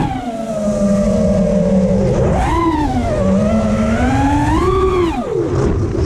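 FPV racing quadcopter's brushless motors and propellers whining, the pitch swinging up and down with the throttle and dropping sharply about five seconds in, over low wind rumble on the onboard camera's microphone.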